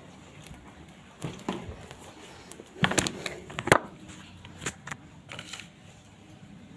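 Handling noises: scattered rustles and clicks, with a cluster of sharp knocks and clicks about three seconds in.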